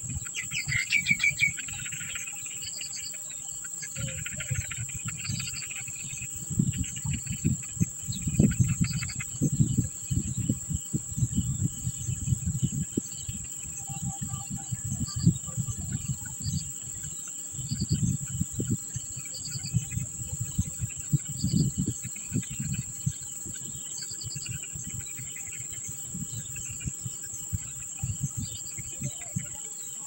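A steady high insect drone runs throughout, with clusters of thin, high begging chirps from nestlings in the first few seconds. Irregular low rumbles and knocks come and go, loudest in the middle.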